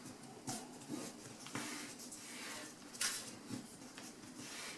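A sheet of A4 paper being folded and creased by hand: faint rustling with a few short, sharp crinkles.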